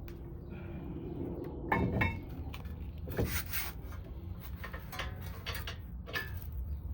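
Metal brake parts and hand tools being handled while a rotor is fitted: scattered clinks and knocks, the loudest about two seconds in and again about three seconds in, over a steady low hum.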